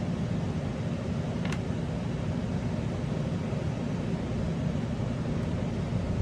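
Steady low hum of background noise, unchanged throughout, with one faint small click about a second and a half in.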